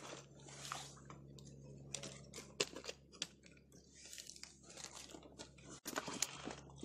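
Faint scattered clicks and short crunching handling noises, with a few sharper ticks.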